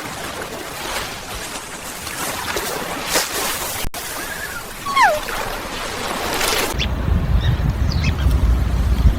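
Seashore ambience: a steady hiss of surf, with a short bird call falling in pitch about five seconds in. Near the end the hiss gives way abruptly to a low rumble.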